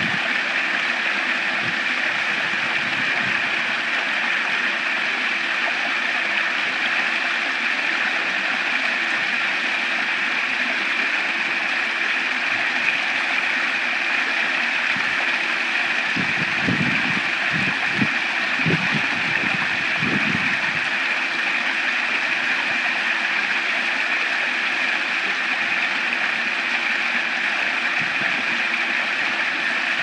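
Water from a small backyard rock waterfall, spilling over stacked stones and splashing into the pool below in a steady rush. A few low, muffled bumps come a little past halfway.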